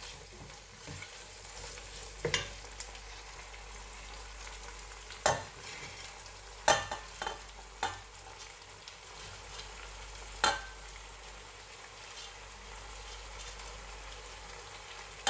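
Vegetables and prawns frying in a stainless steel pot, with a steady sizzle, while parboiled rice is tipped in. Several sharp knocks against the pot cut through it over the first ten seconds or so.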